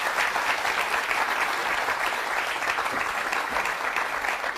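Talk-show studio audience applauding steadily, greeting a guest's entrance onto the stage.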